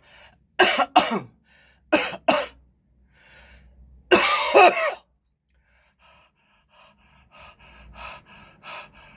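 A man with COVID-19 coughing deliberately: two pairs of sharp coughs, then a longer harsh coughing burst about four seconds in. After that come quieter, quick short breaths.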